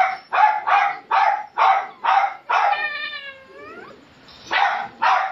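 Small dog barking in quick sharp yaps, about two a second, breaking into a long whine that falls in pitch about three seconds in, then two more barks near the end.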